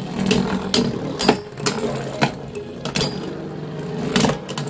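Three Beyblade Burst spinning tops whirring on a plastic stadium floor, with sharp irregular clacks as they knock into each other.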